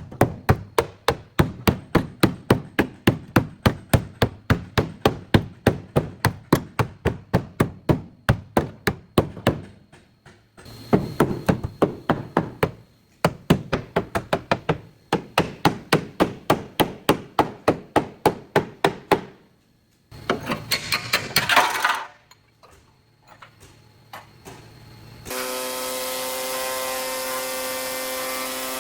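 A hammer beating on car body sheet metal, about three quick strikes a second in two long runs. A brief whirring burst from a power tool follows, then a steady machine hum starts near the end.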